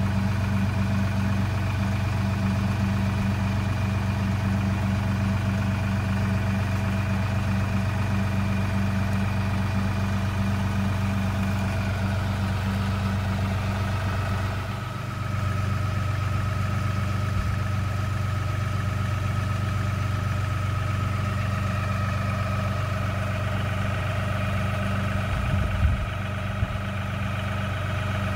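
LS compact tractor's diesel engine idling steadily. A couple of sharp knocks come near the end.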